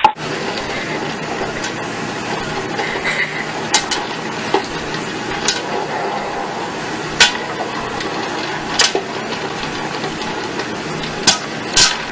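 Popcorn popper with a clear dome heating its kernels with a steady sizzle, single kernels popping now and then and coming more often near the end as the corn starts to pop.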